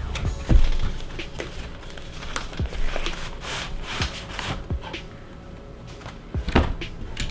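Handling and opening a mail package: scattered knocks, taps and rustling of packaging, with a heavier thump about half a second in and another near the end.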